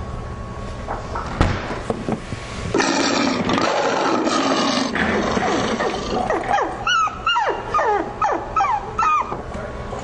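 An animal, dog-like, growling, then a rapid run of short yelping cries that slide up and down in pitch, about three a second, over the second half. A low steady hum and a single knock come before the growl starts, about a third of the way in.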